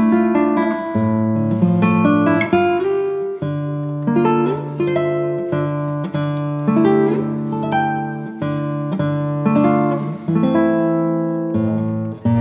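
Background music: a plucked guitar playing a steady run of chords and single notes over low bass notes.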